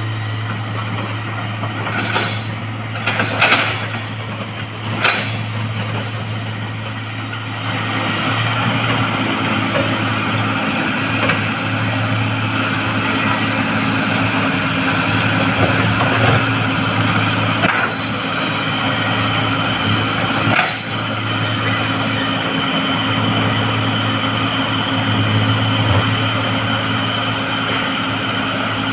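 Heavy diesel earthmoving machinery running steadily, with a few sharp metallic knocks in the first few seconds and the engine working harder from about eight seconds in, with one more knock near twenty-one seconds.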